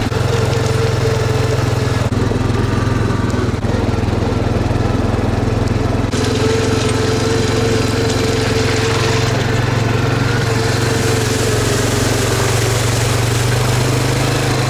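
A small engine running steadily with a constant hum.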